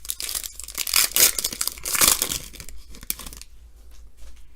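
A crinkly plastic wrapper on a trading-card pack being handled and torn, loudest over the first three seconds. Softer clicks of cards being handled follow.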